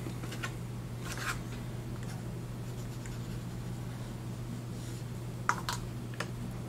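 Small laser-cut wood pieces handled and set down on a wooden tabletop: a few light clicks and scrapes, the sharpest a quick double click about five and a half seconds in, over a steady low hum.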